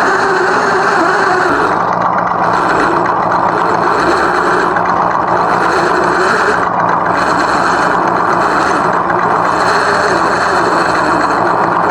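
Simulated engine sound from an FMS RC scale car's sound module, running steadily like an idling truck engine over a continuous rushing noise, with a pitch that wavers at times.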